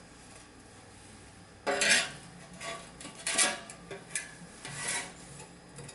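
Handling noise from the unboxed exhaust parts and their packaging: several short rubbing and scraping bursts, the loudest about two seconds in, with more around the middle and near the end.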